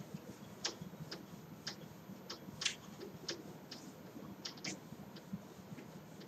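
Faint, irregular scuffs and taps of a whiteboard duster wiping across a whiteboard, about a dozen short strokes with the strongest about two and a half seconds in.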